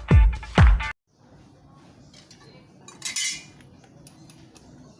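Intro music with a heavy beat that cuts off about a second in, followed by faint light metallic clinks and a short scraping rasp a couple of seconds later, like small metal parts or tools being handled.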